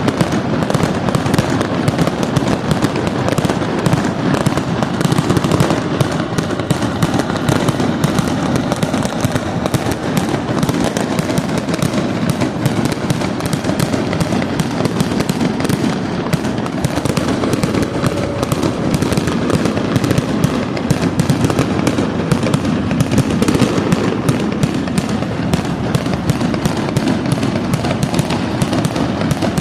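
Fireworks display going off in a dense, continuous barrage of bangs and crackles, with no real pause.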